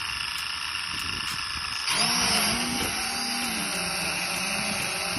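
Vehicle engine running while driving off, getting louder and changing pitch about two seconds in.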